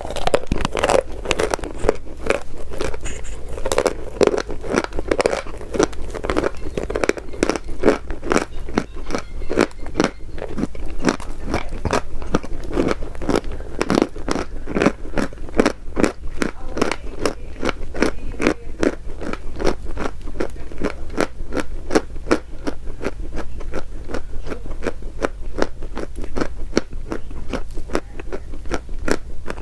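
Edible chalk being bitten and crunched over and over: a steady run of crisp crunches, a few each second.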